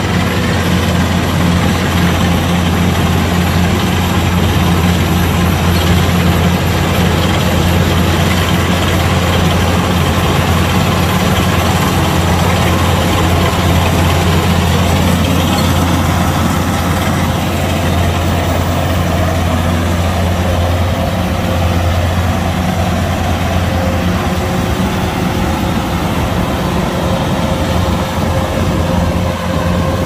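Kubota DC-105X combine harvester's diesel engine and threshing machinery running steadily while it cuts rice, with a loud, even, deep hum.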